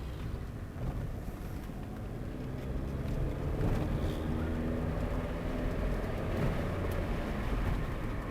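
Toyota Carina AT190 on the move: low road and tyre rumble with its engine running, the engine note rising as the car speeds up about three seconds in.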